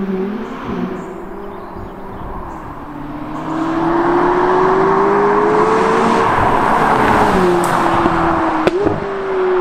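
McLaren 570GT's twin-turbo V8 accelerating hard toward and past, its engine note climbing steadily and then falling about seven seconds in, with tyre and wind noise swelling as the car goes by.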